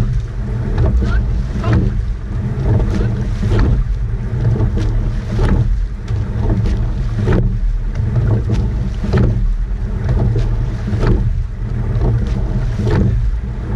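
A rowing eight under way at race pace, with wind buffeting the microphone and water rushing past the hull. About every two seconds there is a sharp clack as the eight oars turn in their oarlocks and the blades catch the water.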